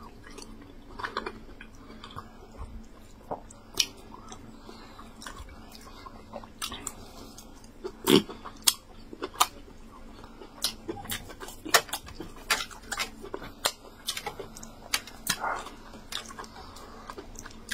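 Close-up chewing and lip-smacking as soft yam fufu with egusi soup is eaten: many short, wet mouth clicks at an irregular pace.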